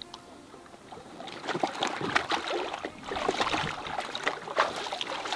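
Lake water sloshing and splashing around a small raft of floating logs as a person climbs onto it and shifts his weight, with a patter of small splashes and drips starting about a second in.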